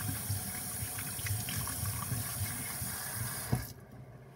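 Kitchen faucet running water into a sink, with a few light clicks and knocks, then shut off with a knock about three and a half seconds in.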